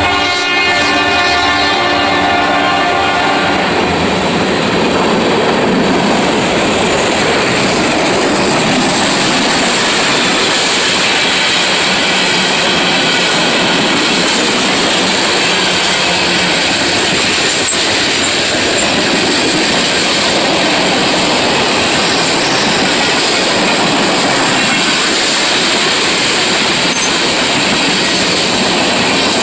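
A CSX mixed freight train's cars rolling past with steady wheel-on-rail noise and clickety-clack. The horn of the receding lead locomotives is still sounding as it opens and fades out within the first few seconds.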